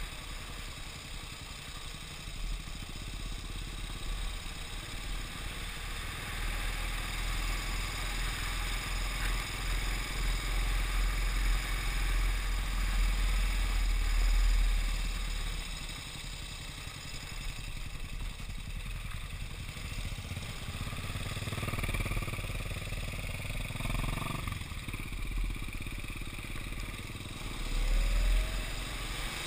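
Motorcycle engine running on a gravel road, heard from a camera on the moving bike, with wind rumbling on the microphone. It grows louder about halfway through and again near the end.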